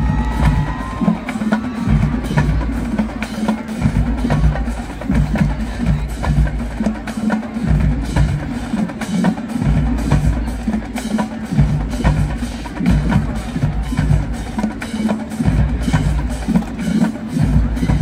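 Marching band drumline playing a cadence: snare and bass drums in a steady repeated beat, with sharp stick or rim clicks over it.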